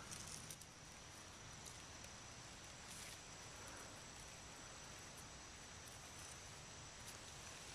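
Quiet woodland ambience: a steady, faint, high-pitched drone of insects, with a few faint rustles.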